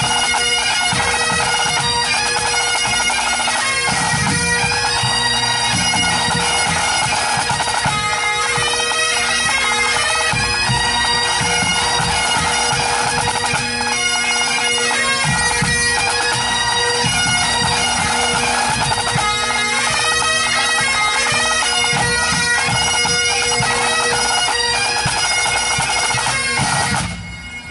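Pipe band playing: Great Highland bagpipes over a steady drone, with snare, tenor and bass drums beating along. The tune stops abruptly near the end.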